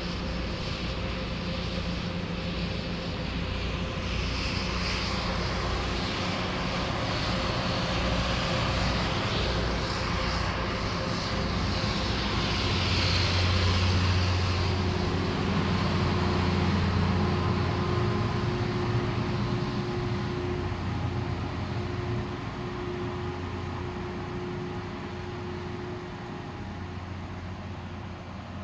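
Rail-grinding train passing slowly below: a steady heavy engine rumble with a hiss over it. It grows louder to a peak about halfway through, then fades.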